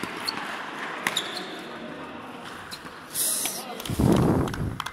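Badminton rally on an indoor court: sharp racket hits on the shuttlecock and shoe scuffs over background chatter in a large hall. A loud, muffled low burst comes near the end.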